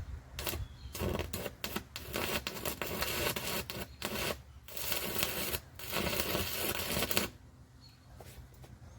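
Stick welding arc on aluminum, 3/32 aluminum rods on a DC welder, crackling and sputtering in short bursts with brief breaks, then stopping about seven seconds in. The stop-start arcs are short spot welds, laid because a continuous bead is hard to hold with these rods.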